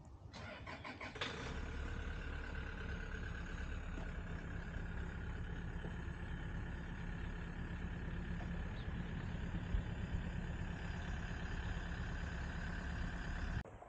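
An engine running steadily with a held whine, starting abruptly with a few quick ticks in the first second and cutting off suddenly near the end.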